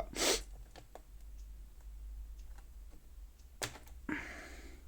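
Scattered faint clicks and taps of hands working small plastic parts inside a laptop while a cable connector is pulled free, with a sharper click about three and a half seconds in.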